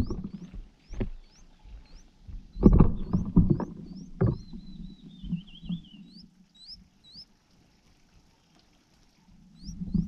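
A nestling's short, high, rising begging peeps, about two a second, over low thumps and rustling of the branches and nest as the parent bird lands at the nest. The thumps are loudest a few seconds in. A brief warbling call follows, then the peeps grow louder as the parent feeds the chick.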